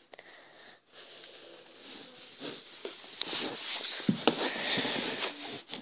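Handling noise: a hand rubbing and moving a plastic Lego model right at the microphone, with a few sharp clicks. It grows louder about halfway through.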